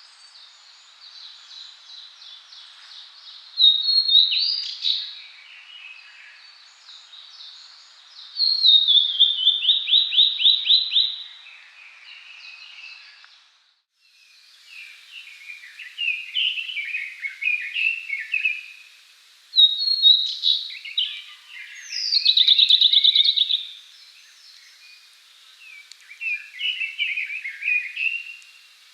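Male blue-and-white flycatcher singing: about six separate song phrases of high whistled notes with pauses between. Several phrases end in a fast run of repeated notes, one falling in pitch.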